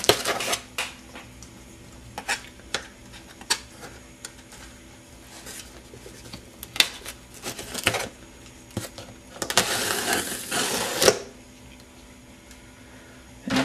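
A sealed cardboard case of trading cards being opened by hand: scattered clicks and knocks of cardboard and packaging being handled, with a scratchy rustling stretch of about a second and a half, some nine seconds in.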